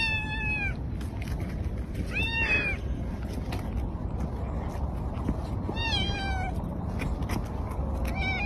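Domestic cat meowing four times, one short meow every two to three seconds, each call dipping slightly in pitch at its end.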